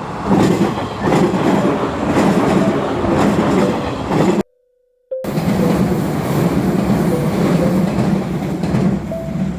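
Electric train passing close by: a steady rumble with the wheels clacking over rail joints. The sound cuts out abruptly for under a second about halfway through, then carries on.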